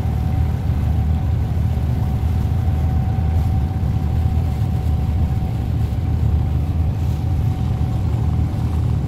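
Engine of a small abra water taxi running steadily under way: a deep rumble with a steady high hum over it, and the wash of water along the hull.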